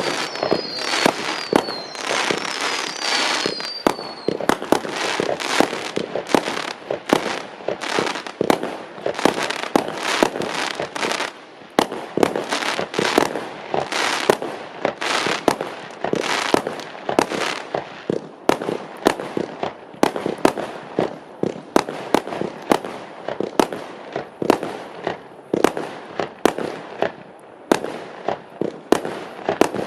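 A multi-shot fireworks cake (the C25620F) firing a rapid volley of launches and bursts, about two to three a second. A few falling whistles sound in the first few seconds, and the volley thins out somewhat in the second half.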